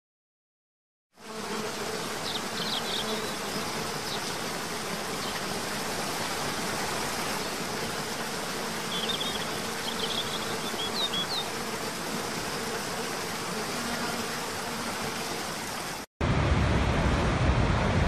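After about a second of silence, a waterfall rushes steadily, with a faint steady hum and a few short high chirps. About two seconds from the end it cuts to the louder, deeper rush of a huge waterfall pouring over its brink.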